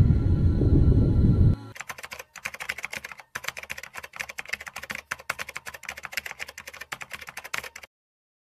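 Deep, bass-heavy background music cuts off abruptly about a second and a half in. A fast, uneven run of computer-keyboard typing clicks follows, a sound effect for on-screen text being typed out, and stops shortly before the end.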